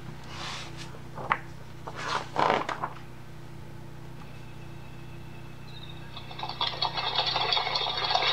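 Pages of a hardcover picture book turned with paper rustles and swishes. From about six and a half seconds, the book's sound panel plays a dense clatter of hoofbeats for a stampeding wildebeest herd.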